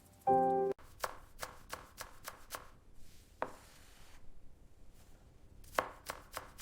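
A brief pitched tone, then a run of sharp taps about four a second, one more a little later, and a short cluster of taps near the end.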